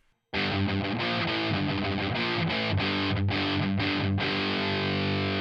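Electric guitar played through the Audiority L12X amp-sim plugin, a Marshall JCM-style high-gain distorted tone. It starts a moment in with a rhythmic riff of short chords broken by brief gaps, then a held chord rings on.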